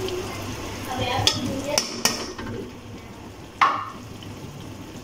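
A metal ladle clinking against a metal cooking pan: a few light clicks, then one sharper knock with a short ring a little after three and a half seconds in.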